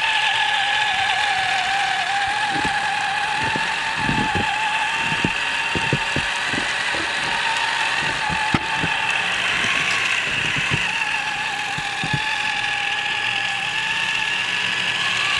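Electric RC truck drivetrain whining steadily as its Titan 12T 550 motor and Summit transmission drive 3D-printed tracks through snow, the pitch wavering slightly with speed. Irregular clicks and knocks come and go through the middle of the stretch.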